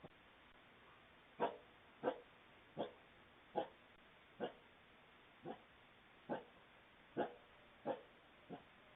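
Wild canid giving a string of short, sharp barks, about one a second, ten in all, over a faint steady hiss, heard through a Ring video doorbell's microphone.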